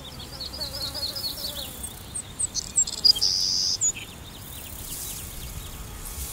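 High-pitched animal calls: a quick run of short chirps, then a few scattered upswept notes and a brief loud buzz about three seconds in.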